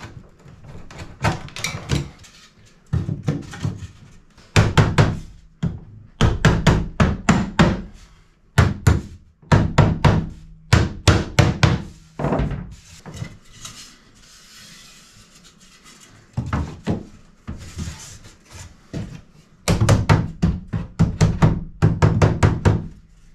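Hammer tapping wooden tongue-and-groove patch boards into place: quick strings of light wooden knocks, several a second, in bursts with short pauses.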